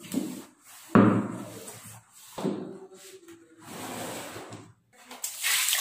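Things being moved and set down on a wooden dressing table: a sharp knock about a second in and another about a second and a half later, with the rattle of a basket of cosmetic bottles and a cloth rubbing the tabletop. A hiss starts near the end.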